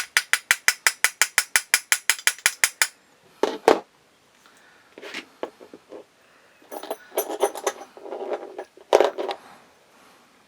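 Rapid light hammer taps, about seven a second, driving a roll pin into a pistol frame to get it started. The tapping stops about three seconds in. Then come two louder knocks and a few scattered clinks and clatter of tools and parts being handled.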